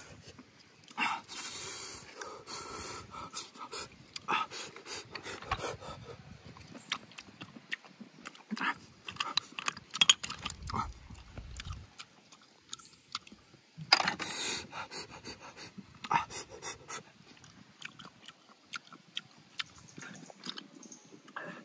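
A person eating roasted snails, sucking and slurping the meat out of the shells and chewing, with light clicks of snail shells knocking together. Two longer hissing slurps stand out, one near the start and one about two-thirds of the way through.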